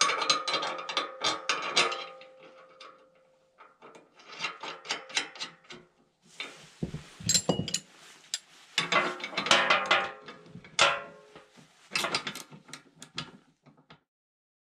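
Steel parts of an ATV snow plow's mount and angle bracket clinking and clanking as they are handled and fitted, in several bursts of rapid metallic clicks with some ringing; it cuts off suddenly near the end.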